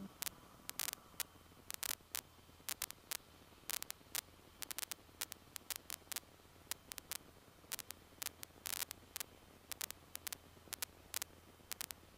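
Faint crackling static in the cockpit intercom feed: irregular sharp clicks, some in quick clusters, over a low steady hum.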